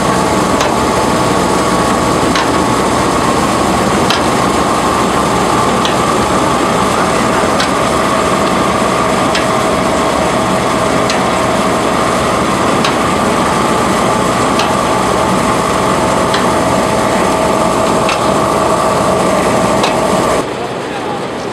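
Brush-roller potato washing and peeling machine running, with water spraying and potatoes tumbling over the rotating brush rollers: a steady noise with a constant whine and a light click about every second and three-quarters. The sound drops and changes about a second before the end.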